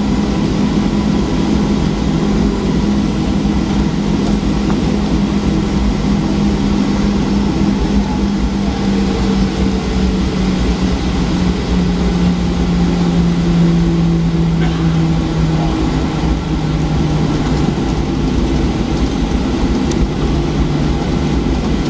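Cabin noise of a Boeing 737-800 rolling along the runway after landing, heard beside the wing: a steady low rumble with an engine hum that slowly falls in pitch.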